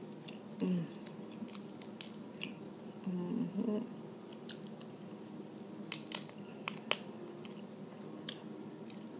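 Close-up chewing and lip-smacking while eating crab, with scattered sharp clicks as the crab shell is picked apart. Several clicks come close together about six to seven seconds in.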